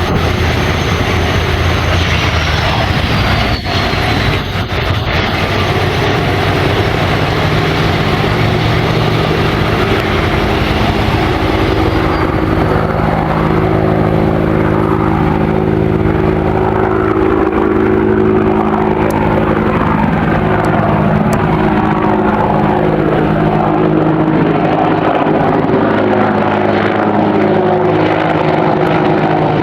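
Airliner engines passing close by, a loud steady rushing noise with a high whine that slides down in pitch over the first dozen seconds, and a steady low hum coming in partway through.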